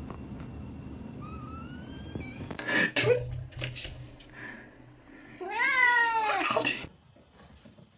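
A domestic cat meowing: a faint rising call about a second in, then a long, loud meow near the end that rises and then falls in pitch.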